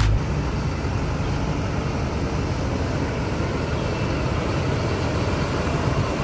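Diesel engine of a UD Trucks tractor unit running steadily at low speed as the truck rolls slowly closer.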